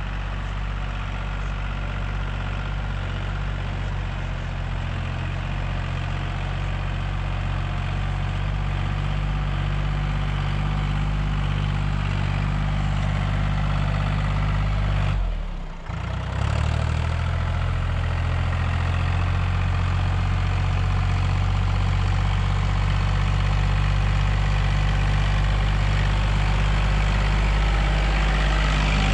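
Farm tractor's diesel engine running steadily while pulling a laser land leveler, growing gradually louder as it comes closer. About halfway through the engine note briefly dips and drops in pitch, then picks back up.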